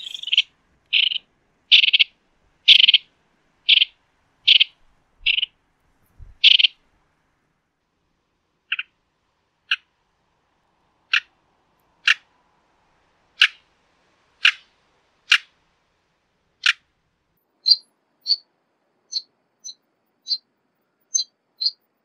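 Cobb's wren (Falkland wren) calling: a series of short harsh calls a little under a second apart, then after a brief pause sharper single calls about one a second, turning near the end into quicker, higher chips.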